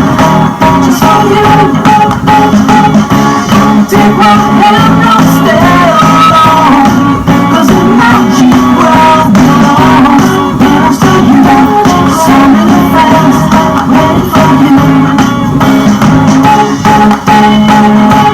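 A song with singing and guitar playing loudly from the speaker of a coin-operated train kiddie ride during a ride cycle.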